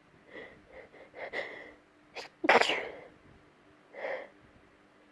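A woman's nose-tickled sneeze fit: a few short hitching in-breaths building up, then one sneeze about two and a half seconds in, followed by a shorter breath. The sneeze is provoked by tickling the nose with a hair pin.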